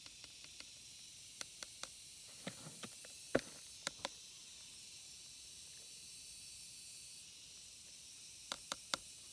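A feather tapping and brushing against a clear plastic box while ants are shaken into it: scattered faint clicks, the loudest about three seconds in and three quick ones near the end, over a faint steady hiss.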